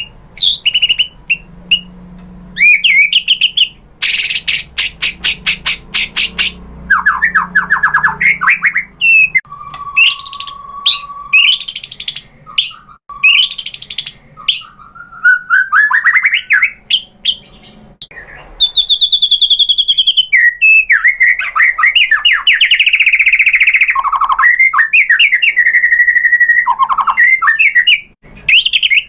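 A male white-rumped shama (murai batu) singing a long, loud, varied song: fast rattling trills, a held whistle, rising slurred notes and high chattering phrases follow one another with short pauses. The song is full of mimicked calls worked into its repertoire.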